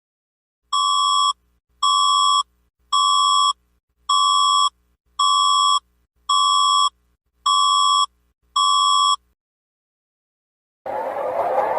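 Electronic emergency alert tone: eight identical short, high beeps, about one a second, then a loud siren-like wail with rising sweeps starting just before the end.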